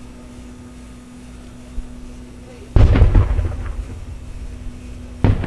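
Aerial firework shells bursting at a distance: a loud boom nearly three seconds in, its rumble fading over the next two seconds, then a second sharp boom just before the end.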